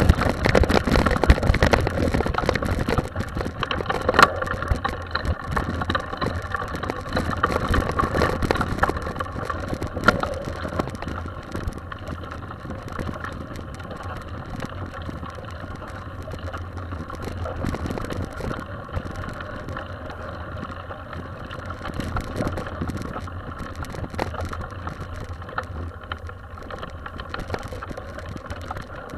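Mountain bikes riding a dirt forest trail: tyres on dirt and gravel and the bike rattling over bumps, over a steady low rumble. Rougher and louder for the first ten seconds or so, then steadier and quieter.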